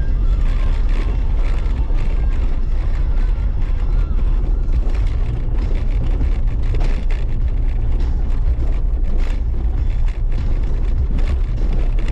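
Jeep Wrangler JLU driving on a dirt trail, heard from a hood-mounted camera: a steady, loud low rumble of wind buffeting the microphone over tyre and engine noise, with scattered small ticks and knocks.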